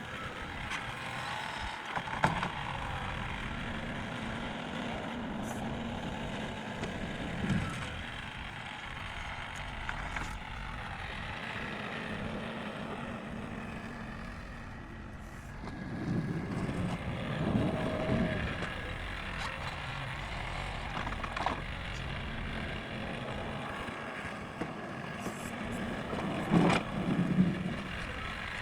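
Old John Deere tractor engine running steadily, swelling louder a few times.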